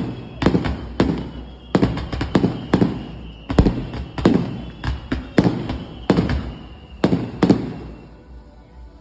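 Fireworks bursting in a rapid string of sharp bangs, about two a second, each trailing off in a rumbling echo. The bangs stop shortly before the end.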